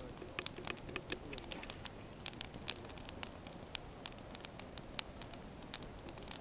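Campfire crackling: burning wood giving irregular sharp pops and snaps, several a second, over a low steady hiss.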